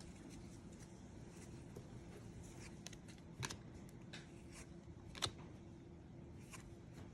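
Trading cards being handled quietly, leafed through one by one: a scattering of faint, short clicks and slides, the clearest about three and a half and five seconds in, over a low steady hum.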